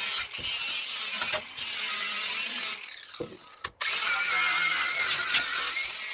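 A ratchet wrench working a fastener with a rapid rasping click. It comes in runs of a second or two, with short pauses between strokes.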